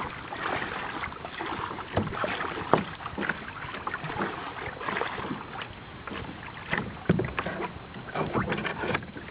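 Kayak paddle strokes dipping and splashing in sea water, in irregular splashes about every second.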